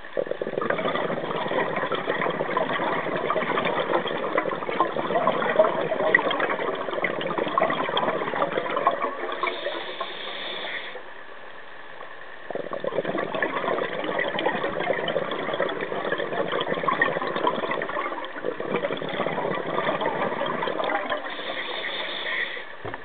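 Scuba diver breathing through a regulator underwater: long, crackling streams of exhaled bubbles. A quieter, higher hiss of an inhale comes about ten seconds in, and again just before the end.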